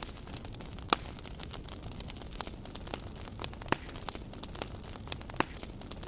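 Campfire crackling: a steady scatter of small pops with a few sharper snaps, the loudest about a second in.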